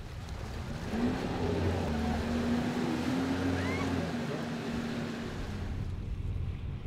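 Water-jet Rescue Runner rescue scooter's engine revving up as it pulls away, then running at a steady pitch over the hiss of its jet spray and wake. It fades out about five seconds in.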